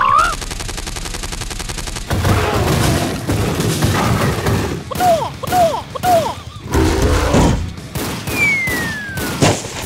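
Cartoon battle sound effects of toy tanks firing. A fast machine-gun rattle runs for about two seconds, followed by a string of shots and booms. Three short arching tones come near the middle, and a falling whistle near the end.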